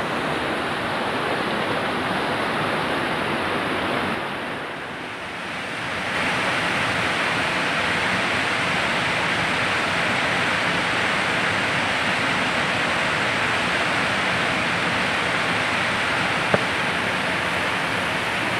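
Swollen, muddy river rushing fast over rocks and through rapids: a steady hiss of water that dips briefly about four seconds in, then comes back louder. A single sharp click near the end.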